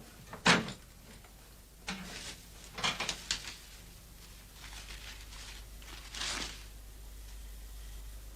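A few scattered light knocks and clicks, like objects being handled, over a steady low hum. The loudest comes about half a second in, with a small cluster around three seconds in and a brief hiss after about six seconds.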